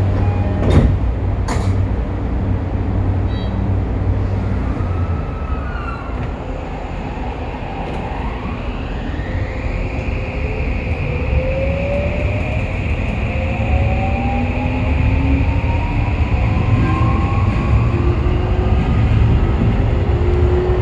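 Inside a Toei 5500 series subway car: the Mitsubishi full-SiC VVVF inverter and traction motors whine in several tones that rise steadily in pitch from about eight seconds in as the train accelerates, over the constant rumble of the wheels and car body. Two sharp clicks come near the start.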